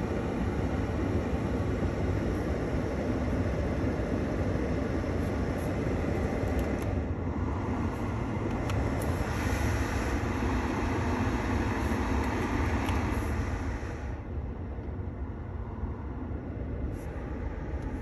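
Ford Maverick's heater blower fan running at full, a steady rush of air over the low rumble of the idling engine. The rush brightens about seven seconds in and drops to a softer level about fourteen seconds in.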